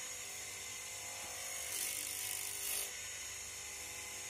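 Bull Tool 750 W wood mortising machine running steadily with a faint whine, and a short hissing rasp about two seconds in as the chisel and bit cut into the timber.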